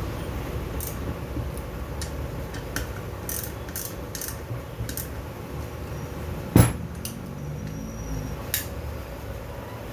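Metal turbocharger parts and hand tools clinking and clicking during reassembly, with one loud metallic knock about two-thirds of the way through. A steady low rumble runs underneath.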